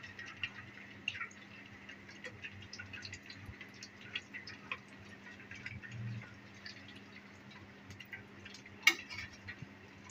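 Breaded rolls deep-frying in hot oil: a steady patter of small crackles and pops. A sharp knock comes about nine seconds in.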